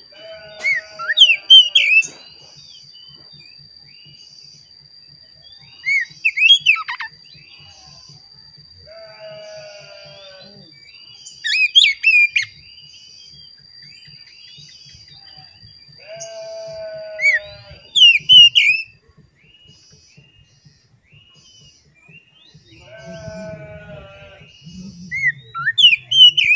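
Oriental magpie-robin (kacer) singing loud whistled phrases of sliding notes in five bursts, about every five to six seconds, with quieter lower notes between. A faint steady high tone runs underneath.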